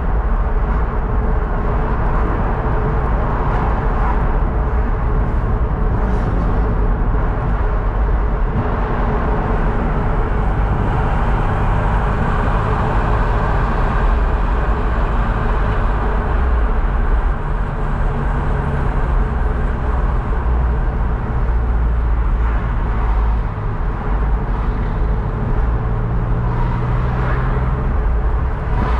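Car driving at moderate speed, heard from inside the cabin: a steady engine drone under tyre and road noise, with the engine note shifting a few times as the car changes speed.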